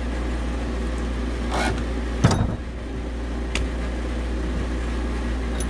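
Steady low machinery hum of HVAC equipment, with a single loud metallic clank a little over two seconds in and a couple of light clicks later, as valve parts and tools are handled.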